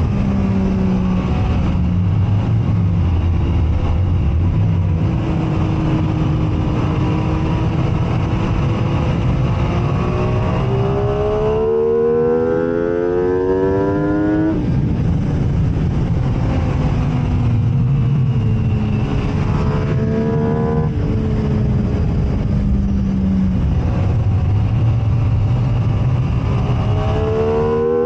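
MV Agusta F3 675 sport motorcycle's inline three-cylinder engine at racing speed, its pitch climbing steeply under hard acceleration about twelve seconds in and again near the end, and running lower and easing off in between, over steady wind rush.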